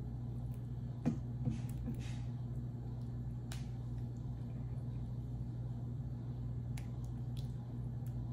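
A black plastic ladle scooping meat sauce out of a stainless steel pot and pouring it over spaghetti in a glass casserole dish: a few light clinks and knocks of the ladle against the pot and wet plops of sauce, over a steady low hum.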